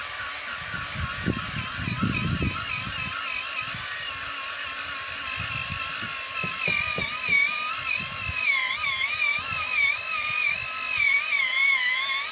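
A small electric drill boring down into the soil of a fence post hole to loosen it, the motor's whine wavering in pitch as the bit bites and frees, with low knocks from the bit in the ground.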